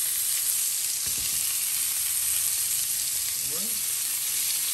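Mahi-mahi fillets sizzling steadily as they fry in hot oil.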